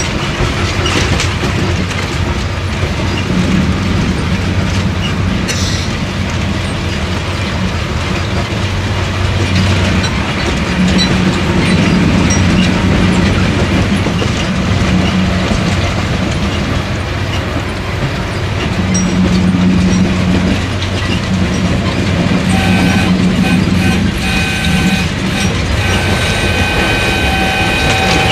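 Kalka–Shimla narrow-gauge toy train running along the track: a steady rumble and clatter of the carriages with a low hum that swells and fades. About 22 seconds in, a steady high tone joins it and holds to the end.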